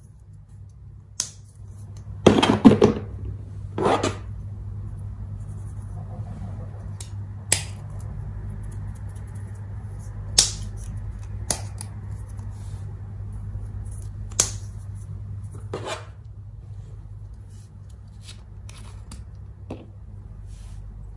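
Plastic glitter shaker bottles handled over a glass bowl: about half a dozen sharp clicks of the plastic caps and three short noisy shakes as glitter is tipped out, over a steady low hum.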